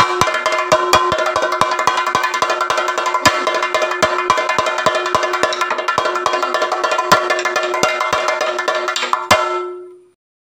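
Chenda, the Kerala cylindrical drum, beaten with a curved stick in a fast, dense stream of sharp strokes over a steady ringing tone. It stops about nine and a half seconds in and dies away.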